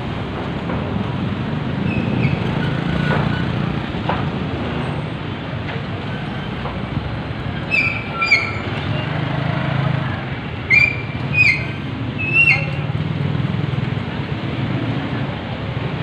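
Street traffic: the low, steady running of vehicle engines, with a passenger jeepney passing close by. About halfway through come five short, high-pitched beeps in quick pairs, louder than the traffic.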